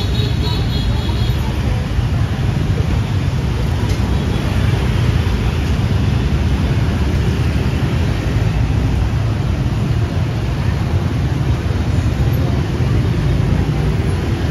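Steady city street traffic: a continuous dense rumble of passing vehicles, with a brief high chirp in the first second.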